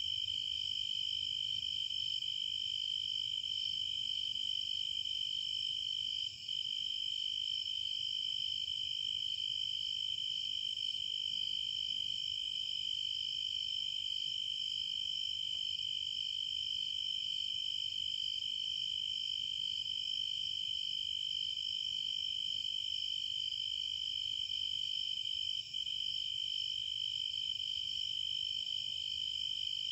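A steady, high-pitched insect chorus trilling without a break, except for two very short dropouts, one about six seconds in and one later on.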